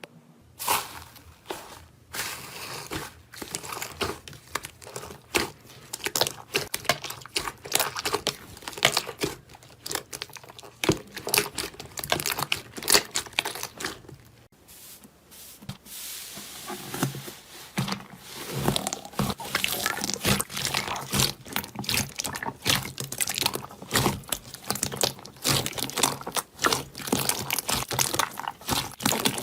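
Slime being handled, giving a dense run of crackles and pops. There is a break about halfway through, after which the crackling changes texture.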